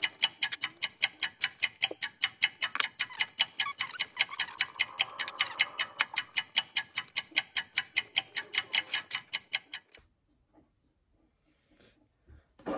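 Ticking clock sound effect: quick, even ticks, about five a second, that stop abruptly about ten seconds in.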